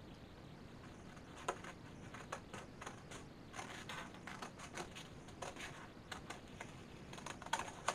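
Scissors cutting through a sheet of paper: a run of short, irregular snips, faint.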